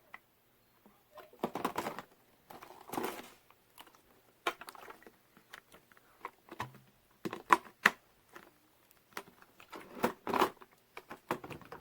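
Plastic parts of a Hoover Smartwash carpet cleaner being handled, with irregular clicks, knocks and rattles as pieces are taken off and fitted.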